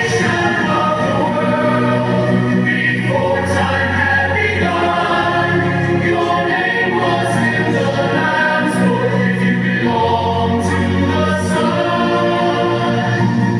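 A group of schoolchildren singing a song together in chorus, with long held notes.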